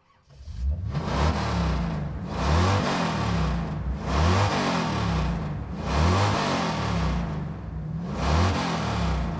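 Muscle car engine revved about five times in a row, each rev rising and falling back in pitch, with the engine rumbling at idle between revs.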